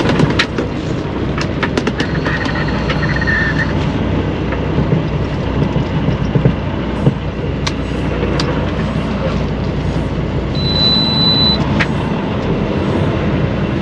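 Steady vehicle engine and road noise, with scattered clicks and a short high-pitched beep late on.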